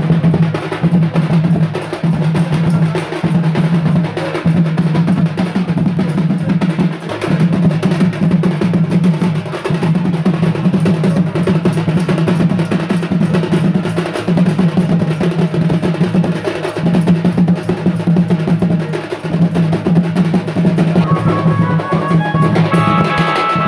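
Drums played in fast, continuous rolls with a strong low drone, keeping up without pause; a few held higher tones join near the end.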